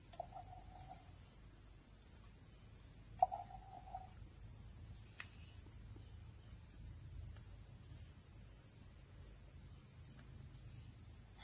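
Steady, high-pitched insect chorus droning without a break. Two brief mid-pitched notes sound over it, one at the start and one about three seconds in, the second opening with a sharp click.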